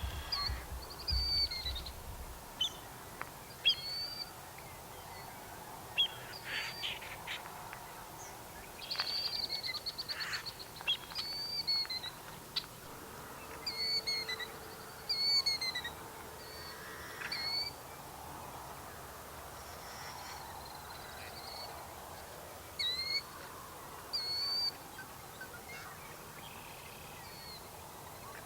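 Marsh birds calling: many short, sharp whistled notes that arch up and fall, repeated in scattered bursts, with a buzzy rattling trill about nine to ten seconds in.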